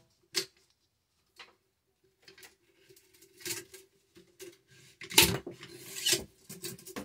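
Steel cleaning rod with a bristle bore brush scraping and knocking as it is worked through the receiver of a Remington 870 Tac-14 shotgun with the barrel off. The rubbing strokes and clicks are irregular, the loudest about five seconds in, over a faint steady hum.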